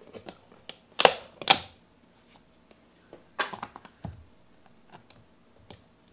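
Metal shaker being shaken to dust cocoa powder over slime in a plastic tub: two sharp shakes about a second in, another quick cluster about three and a half seconds in, with light clicks and a soft knock between.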